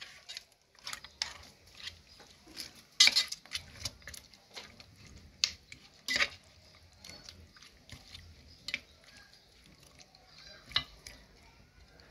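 A small spoon clinking and scraping against a metal pot while stirring raw duck pieces in seasoning: irregular knocks and scrapes, the sharpest about 3 and 6 seconds in.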